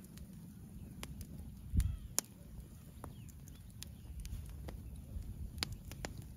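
Wood fire crackling under a whole pig roasting on a spit: scattered sharp pops over a low rumble, with a dull thump about two seconds in.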